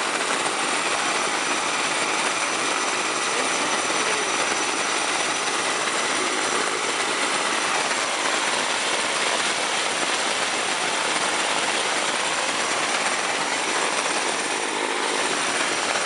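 Walter turboprop engine running steadily on a test stand, its propeller turning: a constant rushing roar with a thin high turbine whine held at one pitch throughout.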